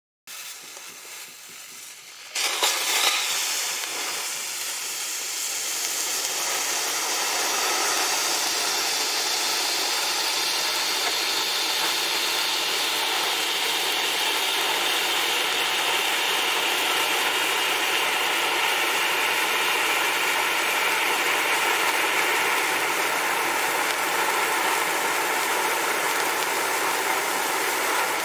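Bright Star Fire Lollipop handheld fountain firework spraying sparks with a steady, loud hiss. It starts as a quiet fizz and flares up suddenly about two seconds in.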